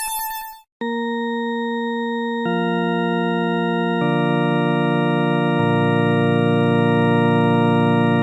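A sustained, organ-like synthesized chord starts just under a second in and holds steady, with lower notes added in steps about 2.5, 4 and 5.5 seconds in, growing slightly louder.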